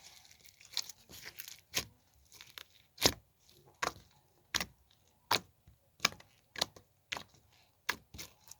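Slime with beads mixed in being squeezed and stretched by hand, giving a string of sharp pops and crackles, roughly one every half second to a second.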